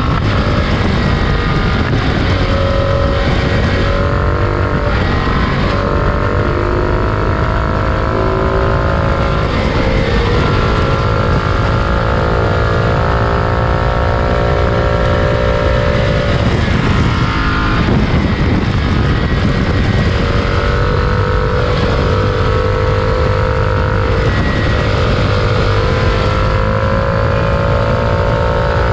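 Freight train running: a steady loud rumble of wheels on rail, with several tones above it that slowly waver up and down.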